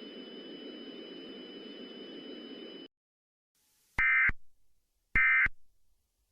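Steady low hiss with a faint high whine that cuts off about three seconds in. After a second of silence come two short warbling electronic data bursts about a second apart: the Emergency Alert System end-of-message (EOM) burst sequence.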